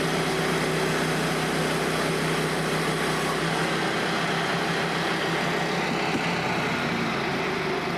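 Frontier band sawmill's 13.5 hp engine running steadily, its note easing slightly about three and a half seconds in.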